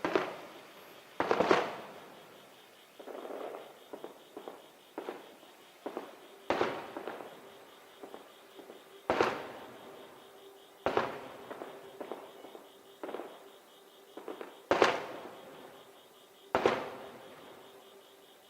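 Aerial firework shells bursting in quick succession, a sharp boom every second or two, each trailing off in a long echo, with smaller pops between them.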